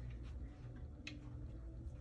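A steady low hum in a quiet room, with a faint sharp click about halfway through.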